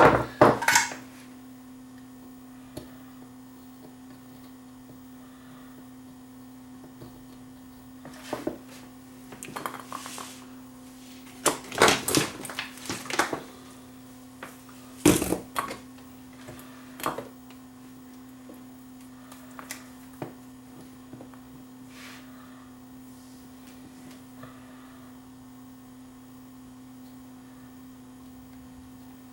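Scattered clicks and taps of small hand tools and an LED bulb's circuit board being handled on a workbench, over a steady low hum.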